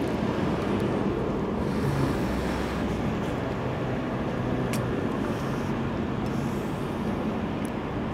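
Steady low rumble of distant engine noise, with two faint sharp clicks in the second half.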